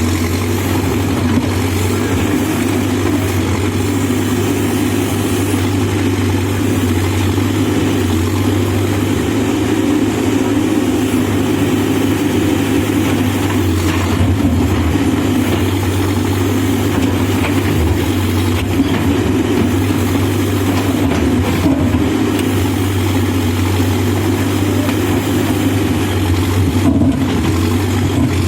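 Diesel engine of a backhoe loader running steadily at a low, even speed.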